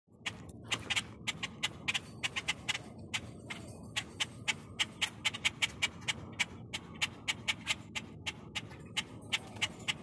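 A group of grackles giving sharp, clicking chuck calls, several a second in an irregular run, over a low background rumble.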